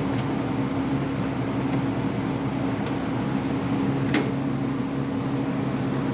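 Truck engine idling with a steady low hum, with three light clicks.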